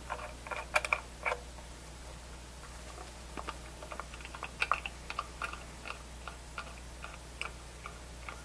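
Small clicks and taps from a YELLOW JACKET TITAN charging manifold being handled as its valve handles are turned down tight, seating the nylon pistons against their brass seats. A quick cluster of clicks comes in the first second or so, then single clicks follow every half second or so.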